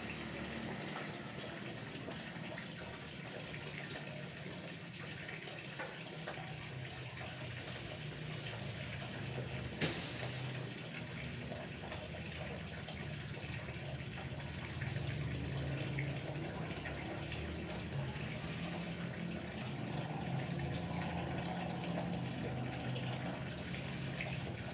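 Cats lapping milk and eating from plastic dishes, a steady wet lapping sound, with one sharp click about ten seconds in.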